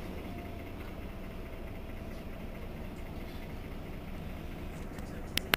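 Irisbus Citelis 12 city bus idling at a standstill, its rear-mounted engine giving a steady low rumble. A single sharp click sounds near the end.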